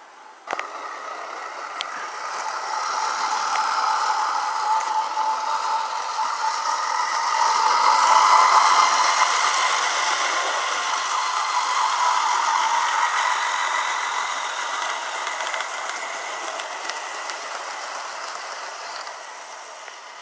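O gauge model train running along the track, its wheels and gearing rattling with a steady whine. It starts suddenly about half a second in, grows loudest as it passes close around eight seconds, then slowly fades.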